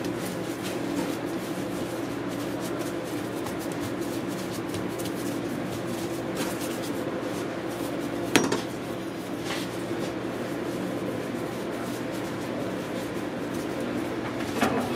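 Commercial kitchen sound: a steady hum of kitchen equipment with scattered clinks and knocks of pans and utensils. The sharpest clink comes about eight seconds in, and a smaller knock comes near the end.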